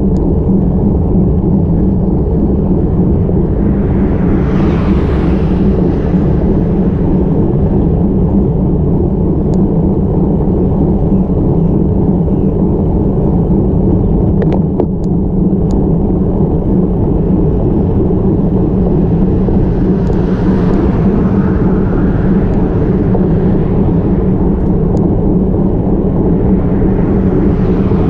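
Steady low rumble of wind buffeting a helmet-mounted action camera's microphone during a slow bicycle climb, with road noise. It swells into a louder hiss about four seconds in, again around twenty seconds in and near the end, as vehicles pass.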